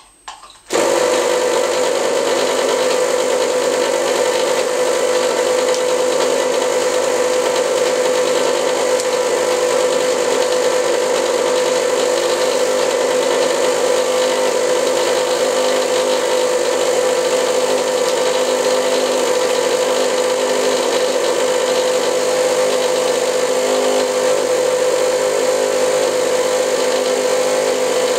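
Electric motor of an Arduino-driven cigarette-tube feeder switching on about a second in and running steadily with an even mechanical whine as it feeds tubes from its hopper.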